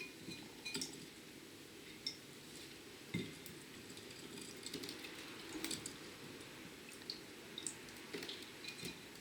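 Budgie bathing in a shallow water dish: scattered light clinks against the dish with small splashes.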